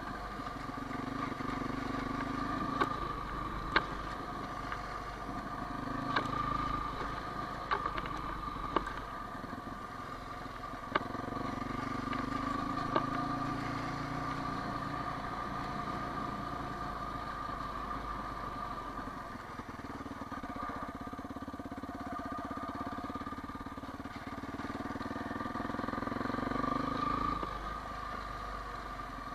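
Quad bike engine running along a dirt track, its note swelling and easing with the throttle and dropping off near the end. Several sharp knocks and clacks come through in the first half.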